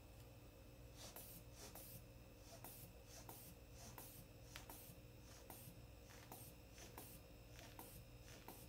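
Faint, quick scratchy hisses, about two or three a second starting about a second in, from the rubber hand bulb of a manual aneroid blood pressure cuff being squeezed to pump up the cuff.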